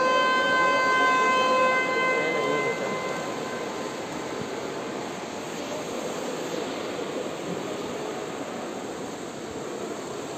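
A steady horn blast, a single held pitched tone, that stops about two seconds in and rings on briefly in the large pool hall, then a continuous wash of pool-hall noise with swimmers splashing.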